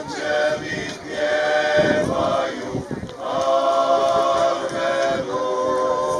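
A klapa, a male a cappella vocal group, singing in close harmony, holding long chords that change every second or two.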